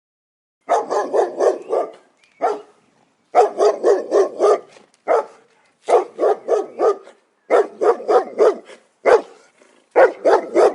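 Recorded dog-bark alarm going off as a countdown timer reaches zero. A dog barks in quick volleys of four or five barks, about four a second, with single barks between, starting just under a second in.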